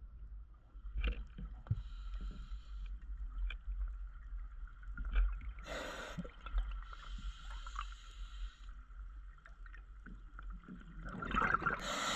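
Scuba diver breathing through a regulator underwater: two slow inhalations as a soft hiss, each followed a few seconds later by a louder gush of exhaled bubbles, the second gush near the end. A faint steady whine and low rumble run underneath.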